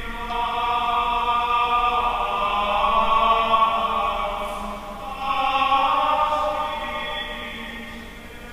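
Slow church chant sung in long held notes, in two phrases that swell and then fade.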